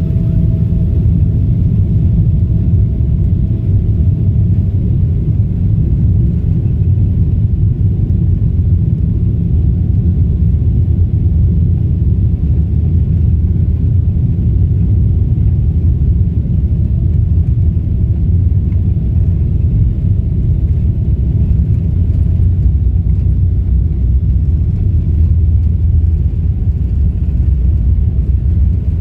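Jet airliner cabin heard from a window seat over the wing while the aircraft rolls on the ground: a loud, steady low rumble of the engines and wheels. A faint steady whine fades out a few seconds in and comes back later.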